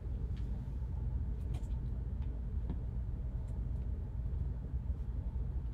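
Steady low background hum, with a few faint clicks and taps as sports cards in plastic holders are handled on the table.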